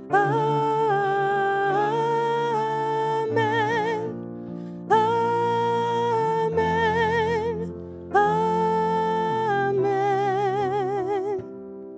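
Sung worship blessing: a singer holds long notes with vibrato over soft sustained accompaniment, in three phrases that begin at the start, about five seconds in and about eight seconds in, before a quieter instrumental passage near the end.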